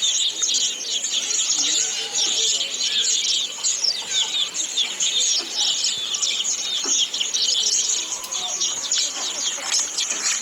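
A dense, continuous chorus of many small birds chirping and twittering, with a few lower, shorter calls mixed in.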